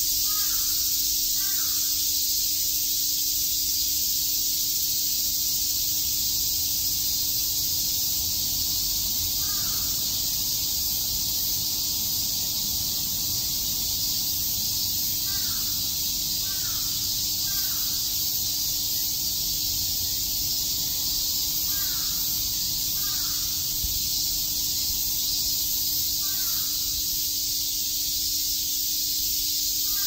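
A chorus of cicadas chirping: a dense, steady, high-pitched hiss. Short bird calls cut in about ten times, scattered through it.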